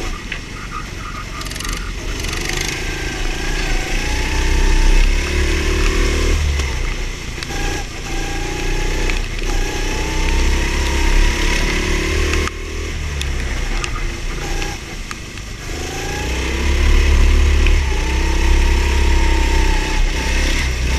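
Go-kart engine heard from the driver's seat, climbing in pitch under full throttle and dropping off as the throttle is lifted for corners, three times over, with a steady hiss of wind and wet tyres on the track.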